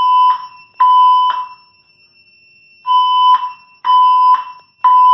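Silent Knight 6700 fire alarm system sounding its evacuation signal in the temporal-three pattern: three half-second beeps, a pause of about a second and a half, then three more beeps. A steady high-pitched tone runs underneath.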